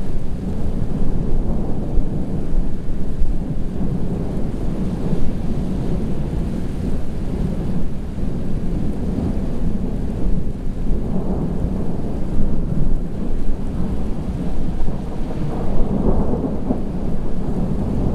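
Thunder from a supercell rumbling on and on, swelling louder about eleven seconds in and again near the end, over a steady rushing background noise.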